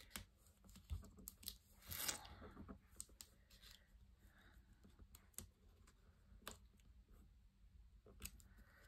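Faint handling of paper pieces: soft rustles and light ticks as cardstock embellishments are shifted and pressed onto a scrapbook page, the loudest a brief rustle about two seconds in.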